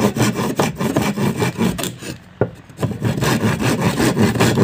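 Hand saw cutting through a plywood board in quick back-and-forth strokes, with a brief pause about halfway.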